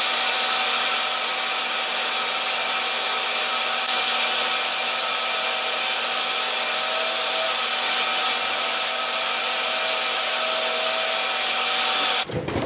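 Shop vacuum running steadily as dust collection on a Kreg pocket-hole jig, with a cordless drill boring pocket holes into a 2x4 under it; the vacuum stops near the end.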